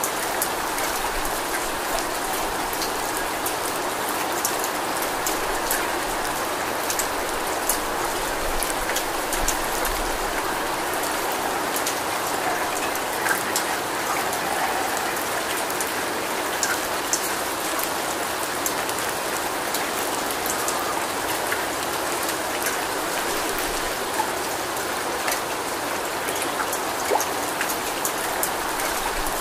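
Steady rain falling: an even hiss with many sharp, close drop ticks scattered through it.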